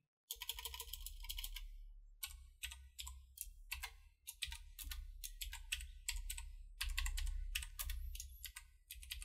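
Typing on a computer keyboard: a run of separate keystrokes at an uneven pace with short pauses, over a low hum.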